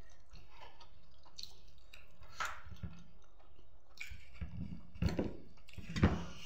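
Small clicks and soft knocks of someone eating by hand at a table and then moving away from it, with a few louder soft thuds about five and six seconds in.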